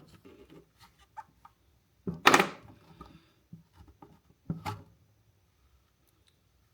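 Hand tools chipping and prying at a stuck locking fuel cap on a motorcycle fuel tank: light taps and clicks, with two louder, harsh scrapes about 2 and 4.5 seconds in.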